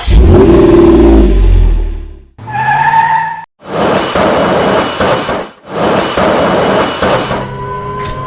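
Recorded car engine effects played through a toy's small sound unit: a loud engine rev with gliding pitch, a short pitched blip, then two long rushing bursts about two seconds each, ending in a faint steady tone.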